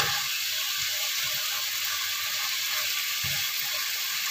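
Chicken feet in black pepper sauce sizzling in a frying pan as the sauce cooks down, a steady hiss. A spatula clicks against the pan as it begins.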